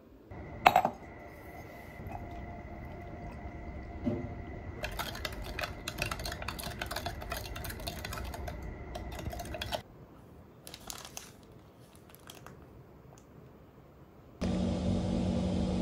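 A spoon stirring briskly in a plastic measuring jug of milky drink, clicking rapidly against the sides, after a single sharp knock near the start and over a faint steady high whine. Near the end a steady low hum begins suddenly.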